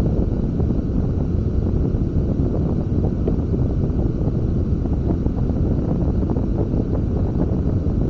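Wind buffeting the camera's microphone on a sailing catamaran: a steady low rumble with irregular gusts.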